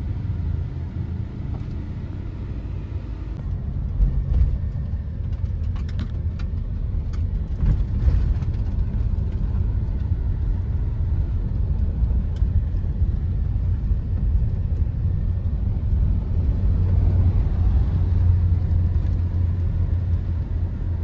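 Mahindra SUV's engine and road noise heard from inside the cabin while driving: a steady low rumble that grows a little louder in the second half. There are a few faint clicks between about four and eight seconds in.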